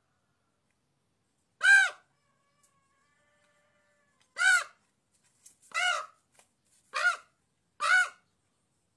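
Raven calling: five short caws, each rising and then falling in pitch. The first comes about two seconds in, and the other four follow about a second apart from four and a half seconds on.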